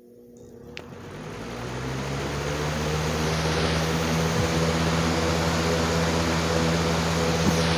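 Lasko Cool Colors 20-inch box fan switched on and spinning up: a steady rush of air and motor hum build over about three seconds, then hold steady. The sound is picked up with the phone leaning against the fan, which vibrates from a blade imbalance that the owner has not yet tracked down.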